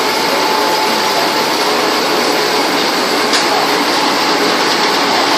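Cable-making plant machinery, the extrusion line, running steadily: a loud, even mechanical noise with a faint steady hum in it.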